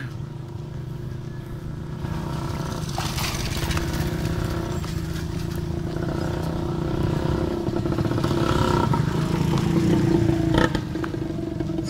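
Motorcycle engine running, growing steadily louder as it approaches and then dropping off about ten and a half seconds in.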